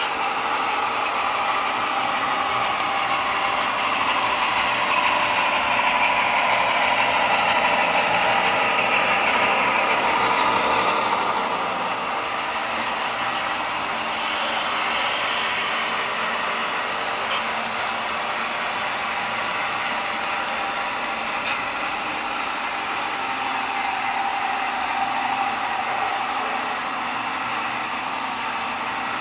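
Engine sound of a DCC sound-equipped HO scale model diesel locomotive, played through its small onboard speaker: a steady mid-pitched run with little deep bass. It grows louder a few seconds in and settles back down about twelve seconds in.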